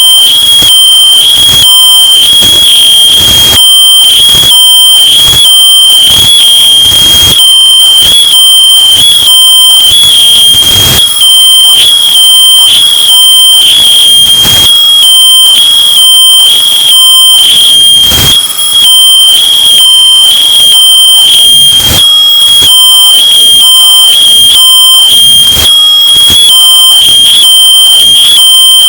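Smoke detector alarm sounding as one shrill, unbroken tone, bass-boosted and overdriven so far that it is clipped and crackling throughout.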